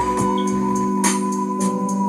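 Background music: long held chords over a steady beat.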